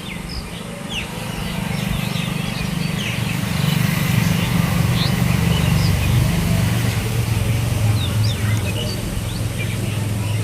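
An engine runs steadily, its low hum dropping in pitch about six seconds in. Small birds chirp over it.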